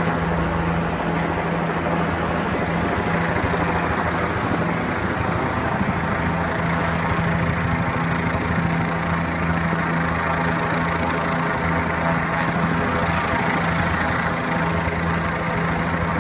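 Helicopter flying overhead: a steady drone of its engine and rotor with a fast low flutter.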